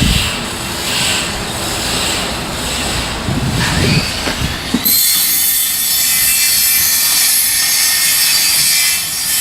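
Surf on a sandy beach: waves breaking and washing in, with surging low rumble. A little under five seconds in the sound changes abruptly to a steady high hiss of foaming water with almost no low rumble.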